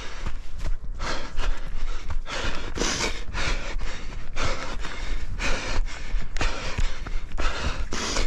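A runner breathing hard while running, panting in quick noisy breaths about twice a second, with dull footfalls thudding underneath.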